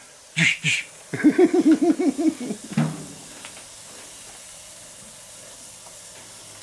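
Steak sizzling on the hot grate of a gas grill, a steady hiss that is left on its own after about three seconds. A person's voice is heard briefly in the first couple of seconds.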